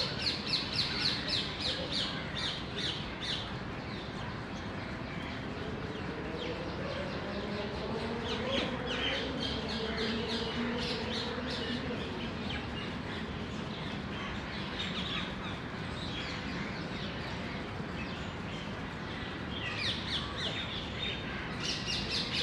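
Birds chirping in the background: quick runs of high, rapid chirps that come at the start, again in the middle and near the end, over a steady outdoor hiss.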